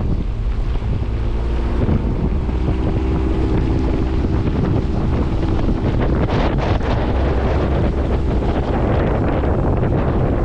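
Small motorboat under way, its engine running with a steady hum, with wind buffeting the microphone.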